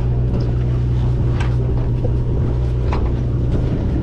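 Sportfishing boat's engine running with a steady low drone, with a few light clicks and knocks on deck over it.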